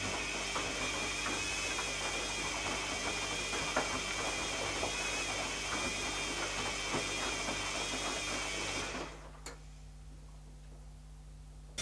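Washing machine motor turning the drum, a steady whine with wavering high tones over a rapid rattle of small clicks. It stops about nine seconds in, and a single click follows shortly after.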